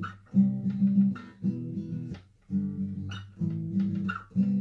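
Acoustic guitar strumming chords, with several strums and a brief break a little past halfway.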